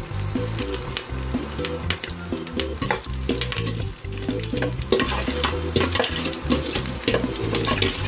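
Hot oil sizzling and crackling in a stainless steel pot as mustard seeds, dried red chillies and chopped green chillies fry, with stirring sounds. There are many sharp pops and spits throughout.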